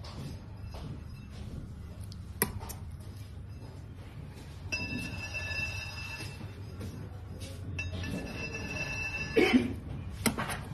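Metal icing knife and scraper clinking against a steel cake turntable: a sharp clink about two seconds in and a louder clatter near the end, over a low steady hum. A steady high ringing tone sounds for several seconds in the middle.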